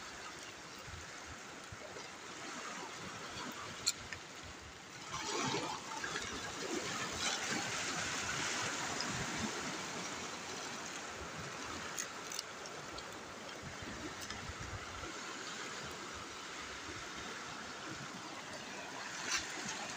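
Shallow seawater washing and trickling over a rocky shore, with splashing as a fishing net is pulled through the water. It swells louder about five seconds in, and there is one sharp click shortly before that.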